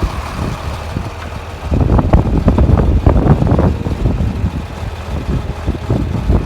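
Wind buffeting the microphone in uneven gusts that turn much stronger a little under two seconds in.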